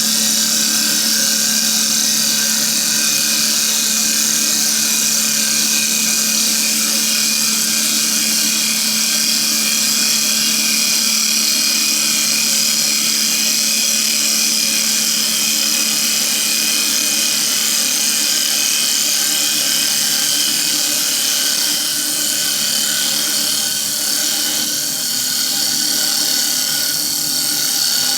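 CNC wood lathe running a turning program: a steady motor tone under a continuous rasping hiss of cutters shaping a wooden workpiece.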